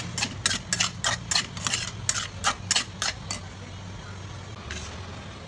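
Steel spatula scraping and tapping against a non-stick pan while stirring soaked puffed rice with vegetables, about four strokes a second, stopping about three seconds in. A low steady hum runs underneath.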